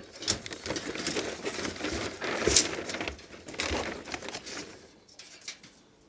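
Packaging rustling and crinkling as parts are unpacked by hand, with a few sharp clicks among it; loudest about two and a half seconds in, dying away near the end.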